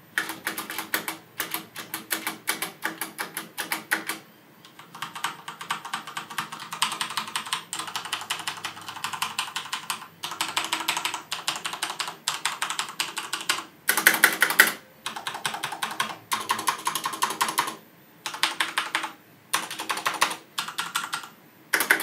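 Typing on a Thermaltake X1 RGB mechanical keyboard with Cherry MX Speed Silver switches: fast runs of key clacks broken by short pauses, the loudest run about fourteen seconds in.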